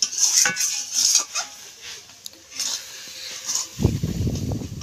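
Metal spatula stirring and scraping thick, sticky jujube pickle around an iron wok, in a series of short scrapes that are loudest in the first second or so. A low rumbling thump near the end.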